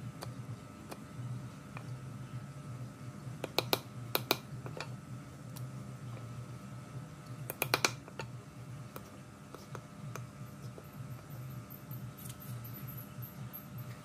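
Sharp, light clicks or taps of small hard objects in three short clusters: two about three and a half seconds in, two more just after four seconds, and a quick run of about four near eight seconds, over a steady low hum.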